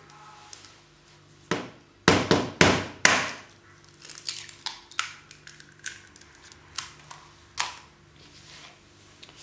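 Raw eggs being cracked into a plastic bowl. Several sharp cracks come about one and a half to three seconds in, then a run of small crackling clicks as the shells are broken apart.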